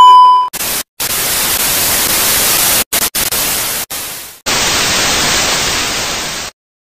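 A short steady beep, then loud TV-style static hiss in several bursts that cut in and out abruptly, like an edited glitch-intro effect.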